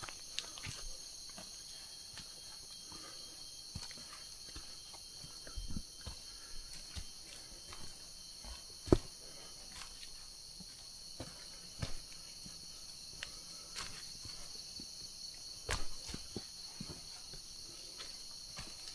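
Steady, high-pitched drone of a rainforest insect chorus, with footsteps crunching through leaf litter and twigs at irregular intervals. One sharp knock stands out about nine seconds in.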